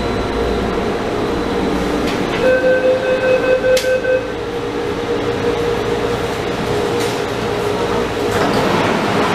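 Rubber-tyred Taipei Metro Wenhu line train running and slowing into a station, with a steady motor tone over the running noise. A little over two seconds in, a rapidly pulsing electronic beep tone sounds for about two seconds.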